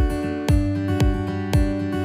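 Background music: a guitar-led track with a steady beat of about two beats a second.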